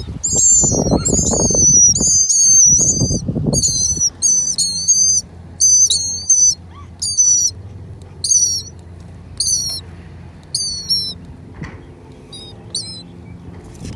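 Nestling birds in a dryer vent chirping shrilly in quick repeated bursts, about one burst a second, growing sparser near the end. Rustling and handling noise goes with the first few seconds.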